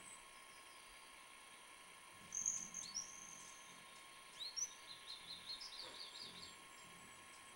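A songbird calling. About two seconds in come a few high whistled notes, some sliding down, and then a quick run of chirps, about five a second, lasting a second and a half.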